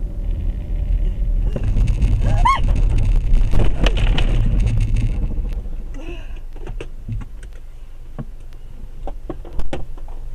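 Steady low rumble of a car on the road. A burst of hiss comes about a second and a half in, with a brief high arching tone in the middle of it. The hiss fades out and scattered sharp clicks and knocks follow.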